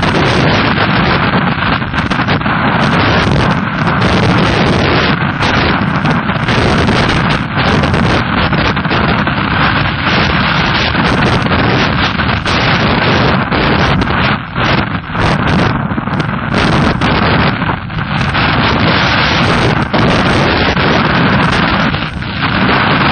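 Loud, distorted rush of wind buffeting the microphone of a camera mounted on a trail bike on the move, with the motorcycle's engine mixed into it. It eases briefly a few times in the second half.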